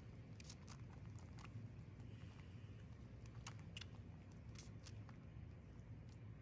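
Faint, irregular clicks and smacks of a baby squirrel sucking at the tip of a feeding syringe, with a sharper click a little before the four-second mark, over a low steady hum.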